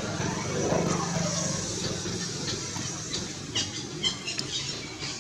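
Baby long-tailed macaque giving a run of short, high-pitched squeals about three and a half to four and a half seconds in, over a steady low background rumble.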